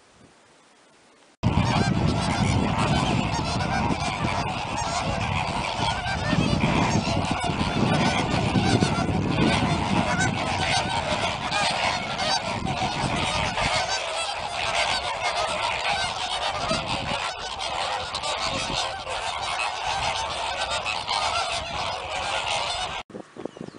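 A large flock of flamingos calling together: a loud, dense, continuous chorus of honking calls that starts suddenly about a second and a half in.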